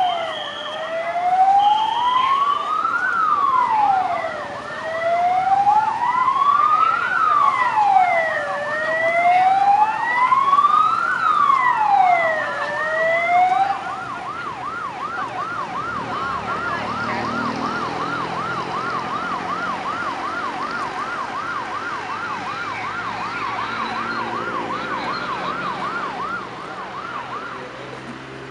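Emergency-vehicle sirens from rescue ambulances. A slow wail rises and falls about every four seconds over a faster yelp that warbles about three times a second. About halfway through the wail cuts off, and the yelp carries on more quietly, fading near the end.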